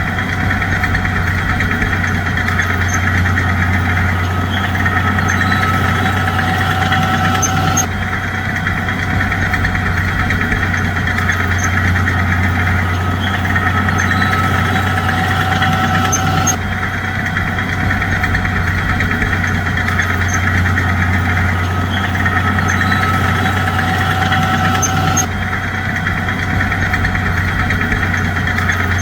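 Bulldozer's heavy diesel engine running steadily with a deep hum. The sound jumps abruptly about every eight or nine seconds and repeats the same pattern.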